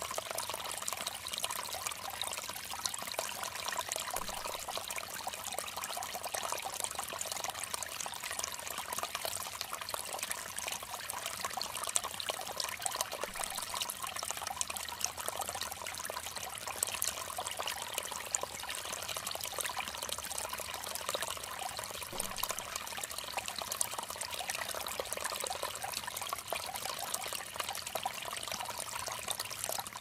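Shallow rocky stream running over stones: a steady, even splashing and gurgling of water.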